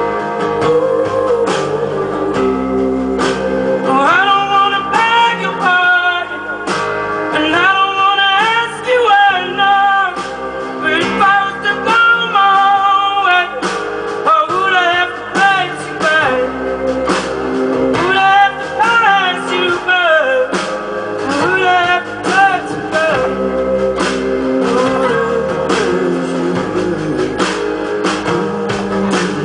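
Live acoustic-guitar performance with a male voice singing a gliding melody over the guitars from about four seconds in until a little past twenty seconds, after which the instruments carry on alone.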